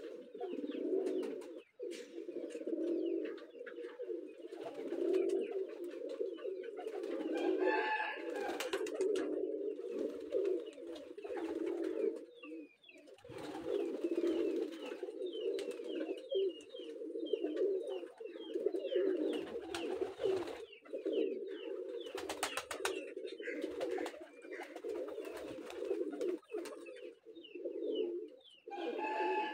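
A flock of domestic pigeons cooing, many low coos overlapping without a break, with scattered light clicks.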